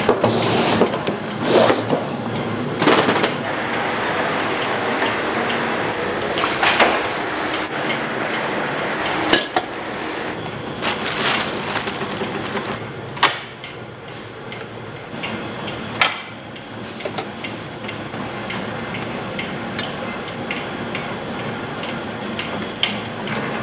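Confectionery workshop clatter: scattered clanks and knocks of metal trays and utensils over a steady background noise.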